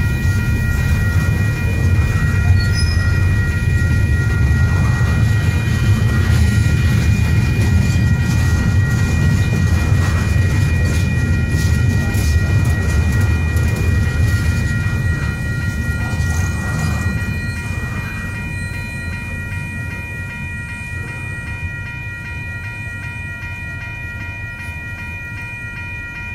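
Freight cars rolling past at a grade crossing: a steady low rumble of wheels on rail that eases off over the last several seconds as the end of the train goes by. A crossing-signal bell keeps ringing as a steady high tone throughout.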